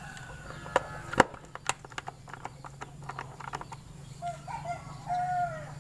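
Clicks and light knocks of a Honda Vario 125's air filter box cover being unscrewed and opened, over a steady low hum. A few short squeaky chirps come in about four seconds in.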